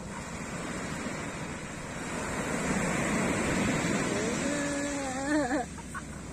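Surf washing onto a pebbly beach, with wind on the microphone; the wash swells in the middle as a wave comes in. About four seconds in, a person gives one long, wavering call lasting about a second.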